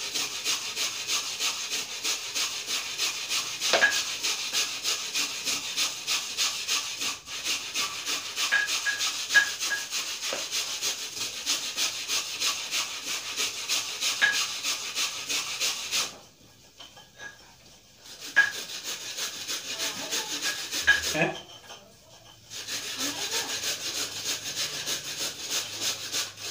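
Coconut flesh being scraped from the shell with a metal blade: a run of quick, even scraping strokes that stops for a couple of seconds about two-thirds of the way through and again briefly a little later.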